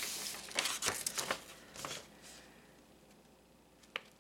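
Rustling and crinkling of a brown paper envelope being handled, in several short bursts during the first two seconds, then quieter, with a single sharp click near the end.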